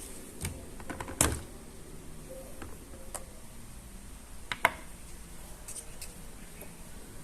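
Hard plastic toy pieces being handled: scattered light clicks and taps, with two sharper knocks, one about a second in and one past the middle.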